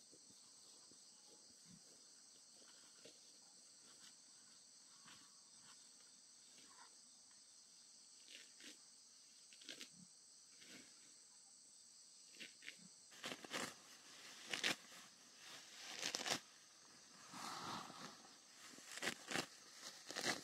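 Insects buzzing in a steady high drone through the first two-thirds. Then close, irregular rustling, tearing and crunching of grass being pulled and cut by hand, with the crinkle of a woven plastic sack.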